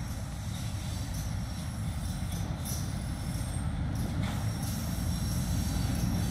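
GE B23-7 diesel-electric freight locomotives approaching, a low, steady engine rumble that grows gradually louder as the train nears.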